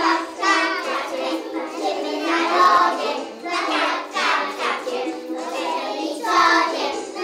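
A group of preschool children singing a song together over backing music.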